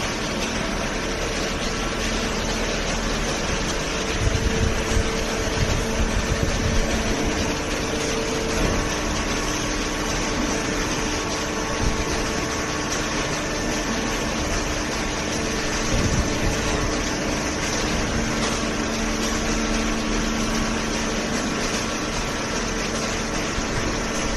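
Hydraulic paper baler's motor and pump running, a steady mechanical hum whose pitch shifts a couple of times, with a louder, rougher stretch a few seconds in.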